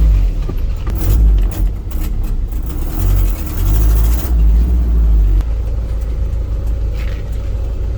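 Hyundai truck's engine running as the truck is driven in first gear, a heavy low rumble that rises and falls for the first five seconds or so, then settles into a steadier, quieter drone.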